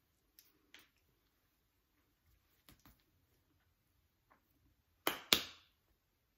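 Two sharp smacks of hands about a quarter second apart, a little over five seconds in, made while signing in American Sign Language. Before them come a few faint taps and rustles of hands and clothing.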